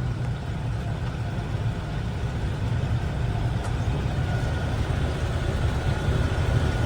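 Gleaner M3 combine running while harvesting wheat: a steady low engine and machinery drone, with a faint steady whine that comes in more clearly in the second half.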